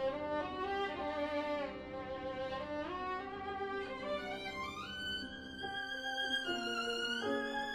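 Background music: a bowed violin playing a slow melody of held notes that step higher in the second half.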